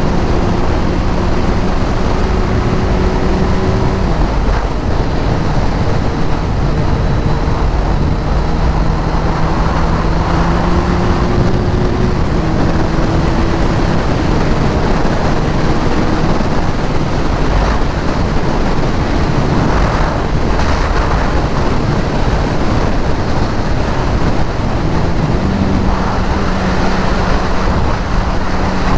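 Sport motorcycle ridden at road speed: heavy wind rush over the camera microphone with the engine's steady drone beneath it. The engine note drops about four seconds in and rises again near the end as the throttle changes.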